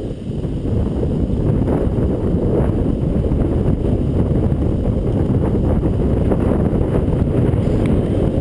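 Wind buffeting the microphone, a loud, steady low rumble with faint rustles over it.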